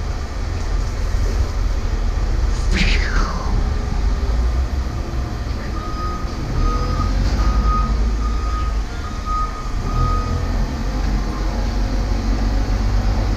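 Steady low engine rumble of a running vehicle, with a backup alarm beeping about six times at an even pace through the middle. A short falling squeal about three seconds in.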